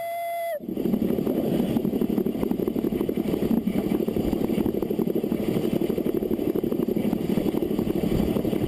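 Narrow-gauge steam locomotive No. 4 Loch, a 2-4-0 tank engine, running along the line as heard from on the engine: a dense, steady clatter of wheels, motion and exhaust. It cuts in sharply about half a second in.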